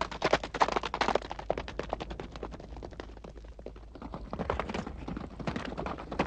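Several horses galloping on hard, stony ground, a fast clatter of hoofbeats. It dips a little about midway, then grows louder again as the horses come closer.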